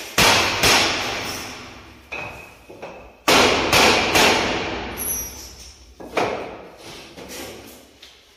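A series of loud bangs and thuds, two or three in quick succession near the start, three more a little after the middle and one later, each ringing out in a bare empty room, from new window frames being fitted.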